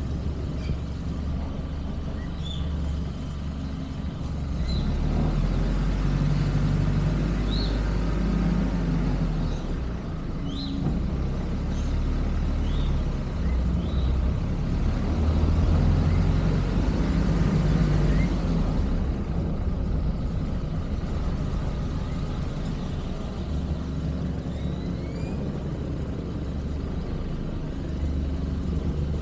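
Car driving along a paved street: a steady low engine and road rumble that grows louder from about five to nineteen seconds in, with short high chirps scattered through the first half.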